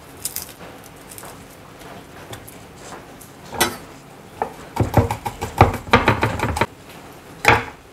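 Kitchen clatter: scattered knocks and clinks of dishes, utensils and containers being handled, with a busier run of them from about four and a half to six and a half seconds in.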